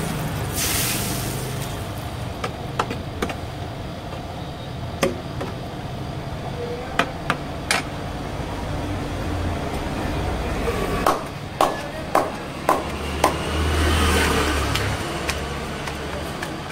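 Food-stall ambience: a steady low rumble of street traffic, with scattered sharp clinks of metal utensils on a steel pan, and a quick run of about five knocks roughly half a second apart past the middle.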